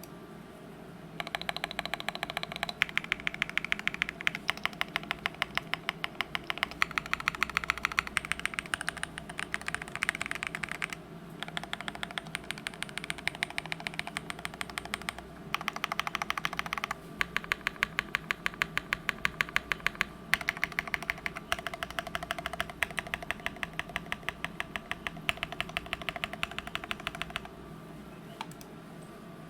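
Mode65 custom mechanical keyboard with an FR4 plate, moyu.studio Poseidon switches and DSS keycaps, typed on quickly and continuously. The keystrokes come as a dense run of clicks with a short break about eleven seconds in, and the typing stops shortly before the end.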